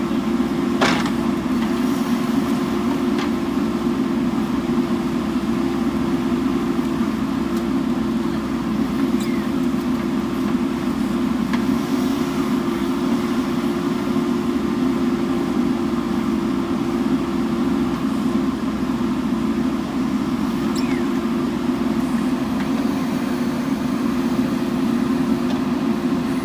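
JCB backhoe loader's diesel engine running steadily under work, with one sharp knock about a second in.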